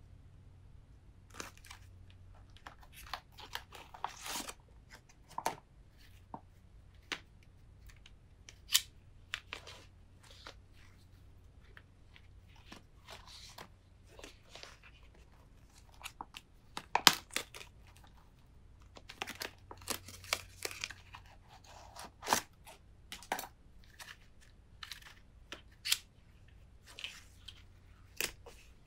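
Plastic packaging crinkling and being pulled open, then nylon luggage straps rustling and their hard plastic buckles and combination strap locks clicking and clacking as they are handled, in irregular sharp clicks.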